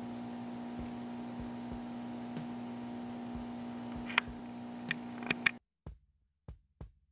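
Steady electrical hum with a few sharp clicks about four to five seconds in. It cuts off suddenly, giving way to near silence broken by a few short knocks.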